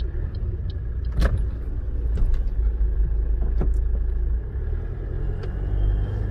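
A car driving on a wet road, heard from inside the cabin: a steady low rumble of engine and tyres, with a few sharp clicks and knocks, the loudest about a second in.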